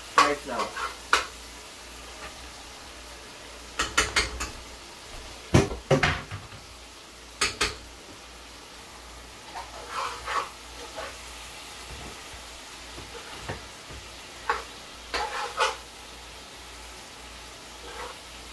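A spoon knocking and scraping against a metal pot as fish are stirred into a curry, in scattered clatters with gaps between, over a faint steady background hiss.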